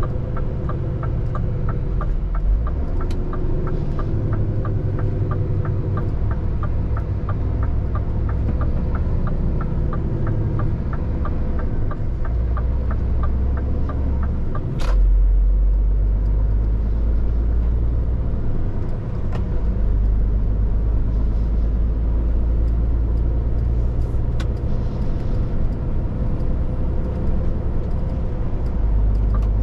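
Inside the cab of a Scania R450 lorry: its 13-litre straight-six diesel and the road make a steady low rumble. For about the first half the indicator ticks steadily at about three clicks a second, then stops. A sharp click about halfway through is followed by a louder rumble.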